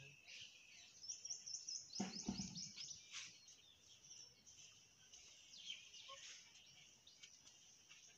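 Faint chirping of small birds: a quick run of high, short chirps about a second in, then scattered chirps. A short low thud about two seconds in.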